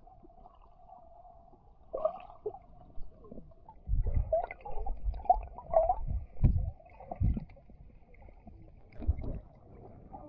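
Seawater heard from underwater: muffled sloshing and gurgling with low thumps, mostly from about four seconds in to past seven, and once more near nine seconds.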